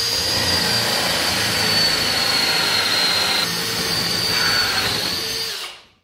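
Cordless drill driving a hole saw through a block of wood. It runs steadily with a high motor whine that sags slightly under the load of the cut, then stops near the end.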